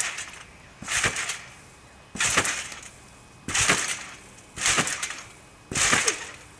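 A backyard trampoline under a person's repeated bounces and flips: a sharp sound from the mat and springs at each landing, fading over about half a second. There are six landings, about one every 1.2 seconds.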